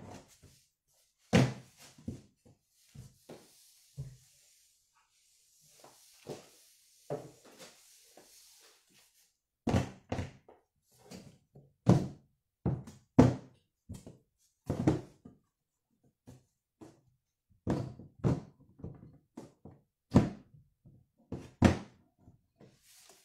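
Irregular thunks and knocks of items being pushed and packed into a large cardboard box, with a stretch of soft rustling a few seconds in.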